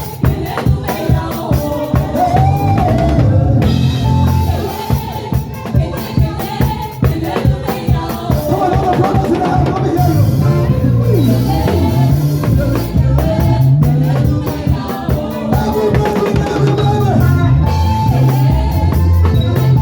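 Gospel praise-and-worship band playing: a drum kit keeping a steady beat under a heavy bass line, with singing over the top.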